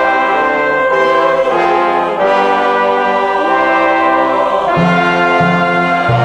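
Orchestral background music led by brass, playing held chords that change every second or so.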